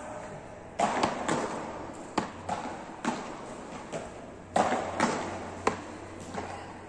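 Beach tennis rackets hitting balls: about ten sharp, irregularly spaced hits from rallies, each with a short echo off the hall.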